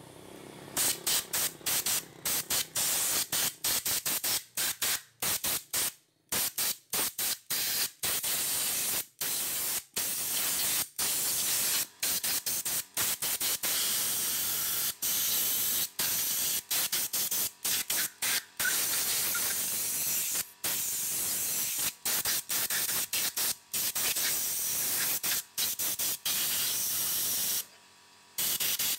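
Compressed-air blow gun hissing in short, repeated blasts as the trigger is pulsed, blowing dust out of a scooter's CVT clutch shoes and driven pulley. There is a brief pause near the end.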